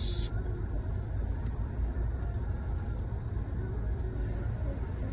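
Steady low rumble inside a car, with the end of a short fizzing hiss from a Sprite bottle being opened at the very start.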